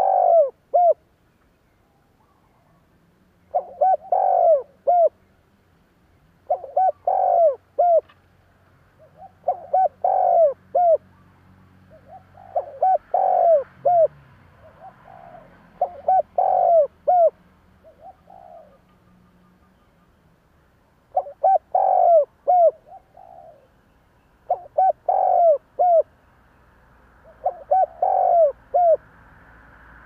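Spotted dove cooing from its cage, a caged decoy's call: short phrases of three or four coos, repeated about every three seconds, with a longer pause about two-thirds of the way through.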